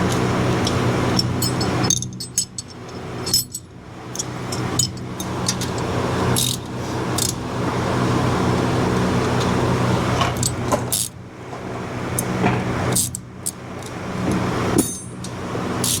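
Hand tools and metal parts clinking in many short, sharp clicks as bolts are worked on an ATV's suspension, over a steady mechanical hum.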